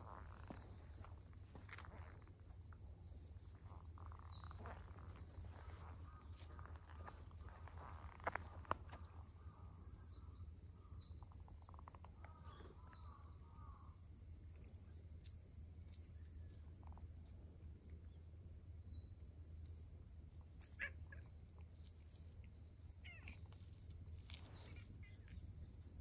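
Steady high-pitched insect chorus buzzing without pause, with a few faint ticks and rustles.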